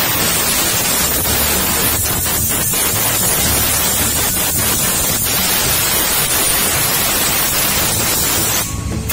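Compressed air hissing steadily from a pistol-grip air blow gun, blasting through a small fuel-injection throttle body to clean it. The blast stops briefly near the end.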